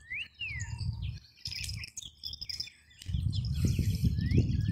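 Birds chirping: a few short chirps that rise and fall, near the start and again near the end, over a low rumble that grows louder in the second half.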